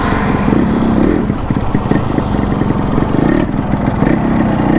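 Yamaha RX100's air-cooled single-cylinder two-stroke engine running steadily at low revs with a rattle, which the owner suspects is piston knock.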